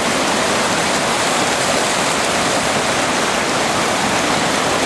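Waterfall in full flow: a loud, steady rush of falling water churning into foam.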